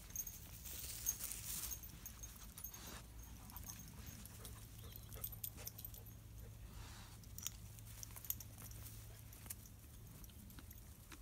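Dogs trotting along a grassy dirt footpath, with faint footsteps, scuffs and rustling and a few short breathy sounds of dogs panting.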